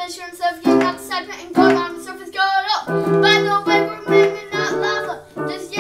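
A boy rapping into a microphone over chords he plays on a keyboard.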